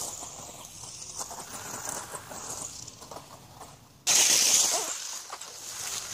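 Radio-controlled Tamiya Fighter Buggy RX running over dry leaves and grass: its electric motor and tyres rustling through the leaves. The sound jumps sharply louder about four seconds in.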